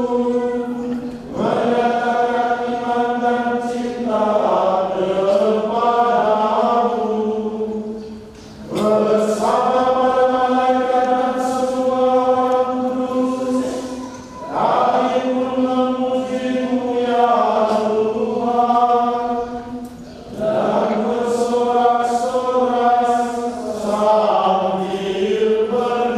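Liturgical chant at a Catholic Mass: a man's voice sings the text on a reciting tone, holding one note through most of each phrase and moving only at the cadence. There are pauses for breath about every six seconds.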